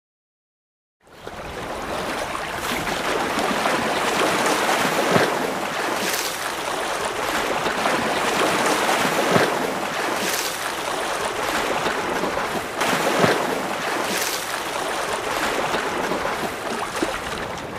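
Steady rushing noise that fades in about a second in and holds, with a few brief louder swells.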